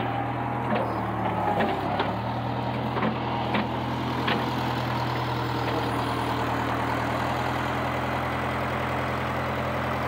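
International Harvester 3500A backhoe-loader's engine running steadily. Its pitch sags briefly about two seconds in as the backhoe hydraulics are worked, and a few sharp knocks come in the first half.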